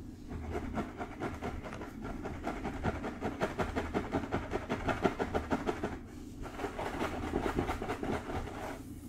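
Fingertips scratching rapidly through hair on a scalp: a dense run of quick, scratchy rubbing strokes, with a short pause about six seconds in.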